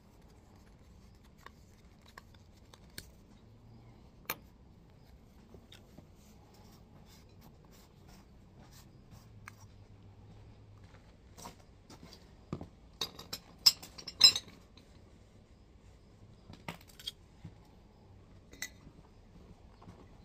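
Scattered small clicks and clinks of threaded steel pipe fittings being handled while their threads are sealed with Teflon tape and pipe dope, with a quick run of louder clinks about 13 to 14 seconds in.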